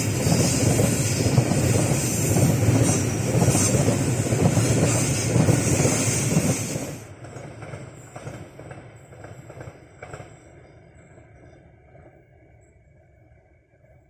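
Freight train of tank wagons rolling past close by: a loud, continuous rumble and clatter of wheels on the rails. About seven seconds in it drops sharply to a much quieter rumble, which fades steadily as the train recedes into the distance.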